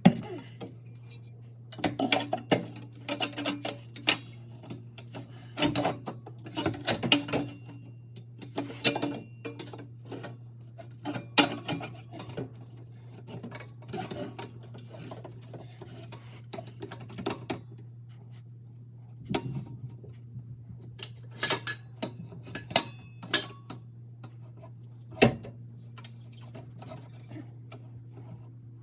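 Irregular metal clinks and clanks, some ringing briefly, from tools and exhaust parts being handled. They come in clusters with pauses between, over a steady low hum.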